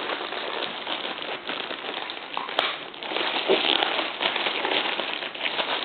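Packaging crinkling and rustling as a hat is unwrapped by hand: a continuous, irregular crackle.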